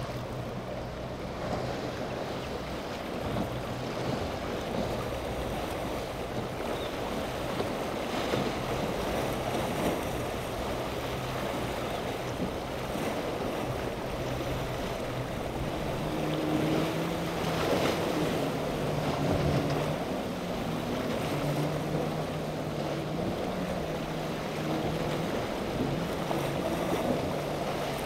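Choppy waves washing and breaking, with wind on the microphone and the drone of boat outboard motors running through the chop. Past the middle a higher engine tone comes in and rises and falls in pitch.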